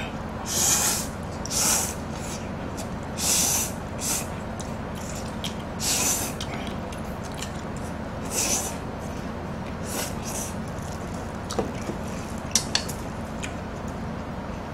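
Spicy instant noodles being slurped from a bowl in short, loud sucks, about eight of them over the first ten seconds, followed by a few sharp clicks.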